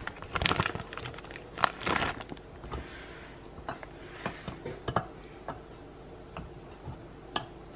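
Scattered light taps and clicks of fingers and fingernails on a metal muffin tin as slices of Canadian bacon are pressed into the cups, with a few soft handling rustles between them.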